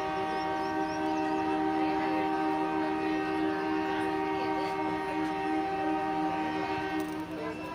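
Train horn sounding one long, steady blast of two low notes held together, which cuts off near the end.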